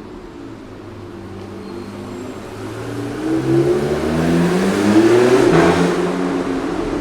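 A supercar's engine accelerating through a road tunnel, its note climbing in pitch as it draws near. The sound is loudest about five seconds in, then eases a little as the car goes past.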